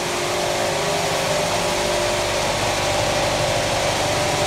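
Vibratory finishing machine running, tumbling sprockets in abrasive stones to take the sharp edges off before anodising. Very noisy: a loud, steady noise with a low hum underneath.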